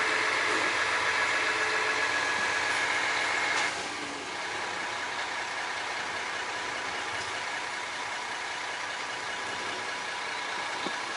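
Garbage truck engine running steadily, with a higher whining tone over it that drops away about four seconds in, leaving a quieter steady engine sound.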